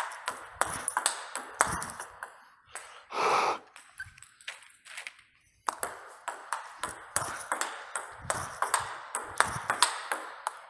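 Table tennis rally: a plastic ball clicking off rackets and bouncing on the table in quick runs of sharp ticks, topspin strokes off a DHS Hurricane 3 Neo rubber. A short, louder noise breaks in just after three seconds, and the ticks pause briefly about five seconds in.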